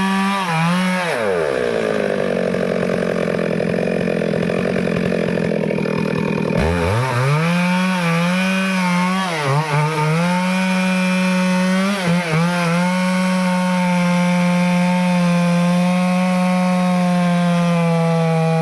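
Stihl chainsaw cutting teak wood at high revs. About a second in the engine speed drops sharply and stays low for about five seconds, then climbs back. After two brief dips it runs steadily at high revs.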